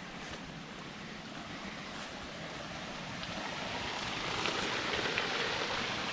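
Rushing water of a mountain stream or waterfall, a steady hiss that grows louder about four seconds in, with a few faint ticks over it.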